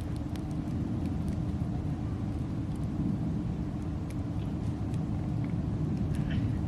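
Softwood firewood burning in a fire stand, crackling with scattered sharp pops and snaps, a small cluster of them about six seconds in, over a steady low rumble.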